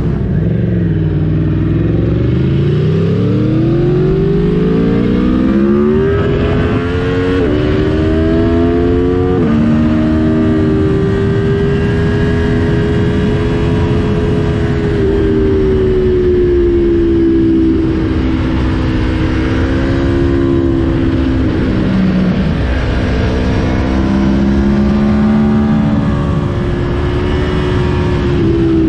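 Aprilia Tuono V4's V4 engine accelerating hard, its pitch climbing and dropping sharply at three quick upshifts in the first ten seconds, then running at a fairly steady speed with the pitch rising and falling slightly. Wind rushes over the microphone throughout.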